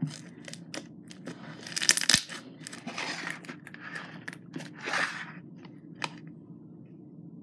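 Crackle slime made with beads being pressed and pulled by hand, giving sharp popping clicks and crackling bursts, the loudest about two seconds in and again around three and five seconds in.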